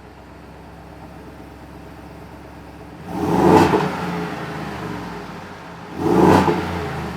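Ford Super Duty 7.3L gasoline V8 idling through its exhaust, then revved twice with quick throttle blips, about three seconds apart, each falling back toward idle.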